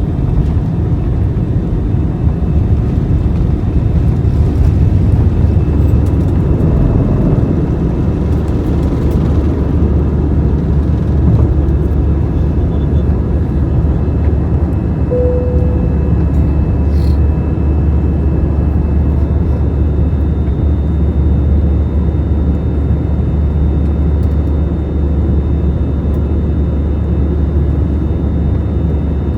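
Airliner's jet engines and rushing air during takeoff: a loud, steady low rumble with faint steady tones above it, and one brief tone about fifteen seconds in.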